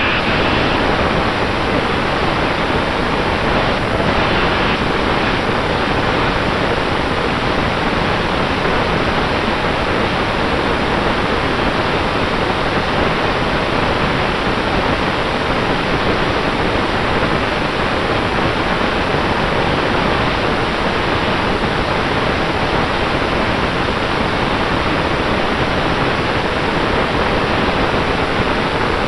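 5-inch FPV quadcopter's motors and propellers, recorded by the onboard camera's own microphone: a loud, steady rushing noise of prop wash with a faint steady whine underneath.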